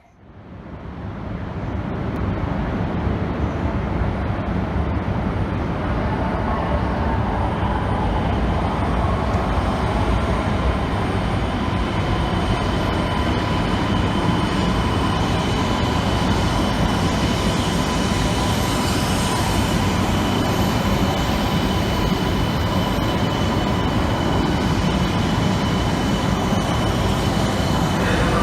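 Shinkansen train noise at the platform: a steady, loud rumble that fades in quickly at the start, joined after a few seconds by a faint, steady high whine.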